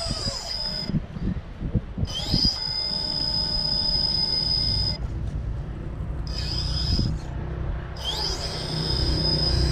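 RC rock crawler's electric motor whining high in four bursts with short pauses between, the pitch rising as the motor spins up about two seconds in and again near the end. A few low knocks come in the first couple of seconds.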